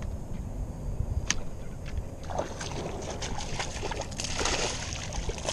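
A small bass splashing and thrashing at the water's surface as it strikes a jerkbait and is hooked close to shore. The splashing starts a little over two seconds in and peaks near the end.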